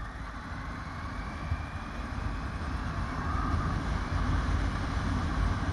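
Motorcycle riding at road speed: the engine runs under a heavy low rumble of wind on the microphone, slowly getting louder. A faint whine rises in pitch in the first couple of seconds.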